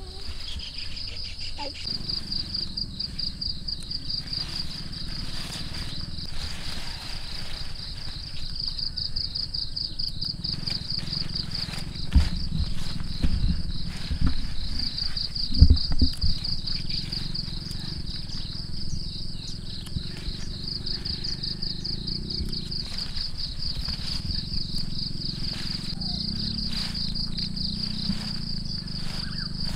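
Insects trilling steadily in a high, pulsing chorus over a low rumble, with a few dull thumps around the middle.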